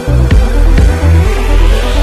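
Electronic dance music: a heavy, sustained bass line with a few drum hits in the first second, and a rising sweep building from about halfway through.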